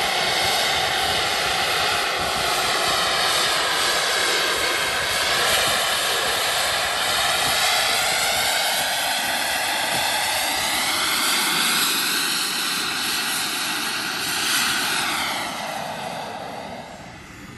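A radio-controlled model jet's turbine engine runs hard as the jet flies low passes, its roar and whine sweeping up and down in pitch as it moves. A peak near the end is followed by a falling sweep as it flies away and fades.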